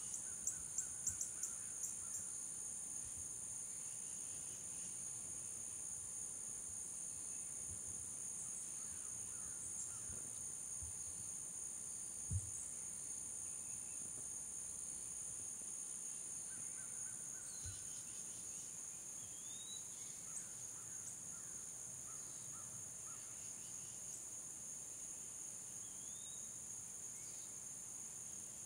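Steady insect chorus of crickets or similar insects, holding two high continuous pitches. A quick run of ticks comes about a second in, a single soft low thump near the middle, and a few short rising bird chirps later on.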